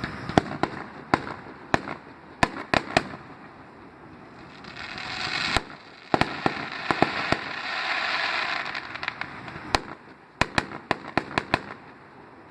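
Fireworks going off: clusters of sharp, irregular bangs and cracks. Between them come two swelling stretches of hiss and crackle, the first ending in a loud bang about five and a half seconds in.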